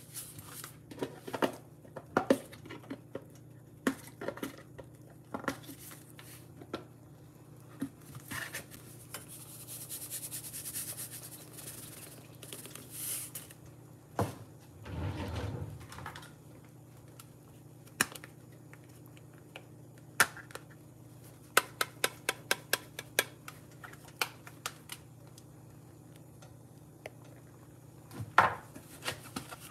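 Scattered clicks and taps of kitchen utensils and containers handled over a pan of pasta, with a quick even run of clicks about two-thirds of the way through as black pepper is shaken onto the pasta.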